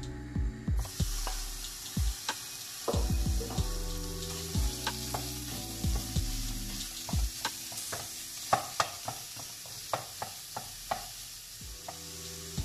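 Minced beef sizzling in a hot nonstick frying pan, the hiss starting about a second in as the meat goes in. A wooden spoon knocks and scrapes against the pan many times as the meat is broken up and stirred.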